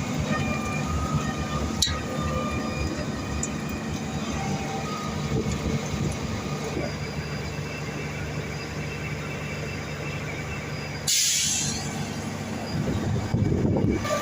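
Truck-mounted concrete pump on a Mercedes-Benz chassis running steadily, its diesel engine giving a continuous low rumble. About eleven seconds in there is a short burst of hissing.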